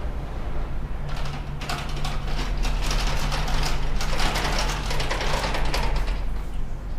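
Bulldozer running, a steady low diesel drone under dense metallic clanking and rattling from the tracks and blade. The clatter and scraping grow louder from about two and a half seconds in and ease off near the end.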